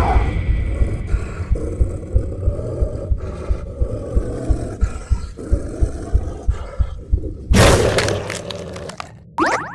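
A person belching: one long, drawn-out, rough burp lasting about seven and a half seconds, then a louder, harsher burst and a short rising sound near the end.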